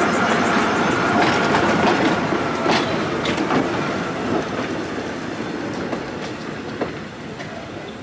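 New York City Transit Authority subway car 6688 rolling past and pulling away, its wheels rumbling on the track with scattered sharp clicks over the rail joints. The sound fades steadily as the car moves off.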